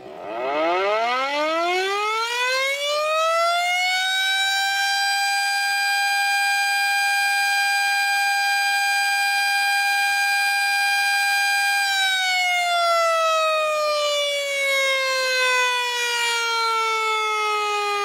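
Tornado warning siren winding up from a low pitch to a steady wail over about four seconds, holding that pitch, then slowly winding down after about twelve seconds.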